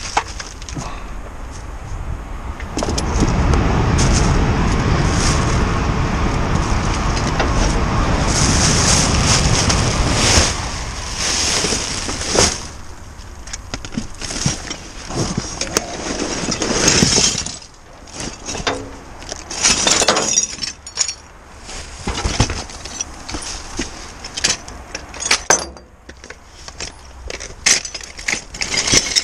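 Plastic rubbish bags rustling and crinkling as they are handled and moved inside a metal waste bin, with scattered clatters and knocks of items being shifted. A loud, steady rumble runs from about three seconds in to about ten seconds in.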